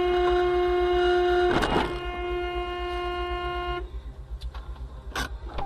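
Car horn held in one long steady blast of about four seconds that cuts off suddenly. A short harsh burst of noise sounds about a second and a half in, and a couple of sharp knocks come near the end, over a low rumble.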